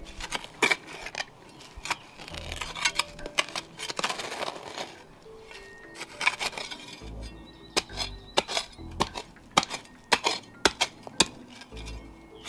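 Steel blade of a Cold Steel Spetsnaz shovel digging into rocky soil: irregular sharp chinks and scrapes of metal on stones with some dull thuds, over quiet background music.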